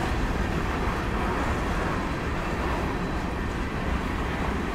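Covered hopper cars of a freight train rolling past close by: a steady rumble of wheels on rail.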